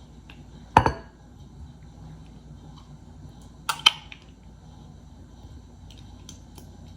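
Two sharp knocks of a kitchen utensil against dishware, about three seconds apart, while sliced banana peppers are spooned into a sauce bowl; faint room hum between them.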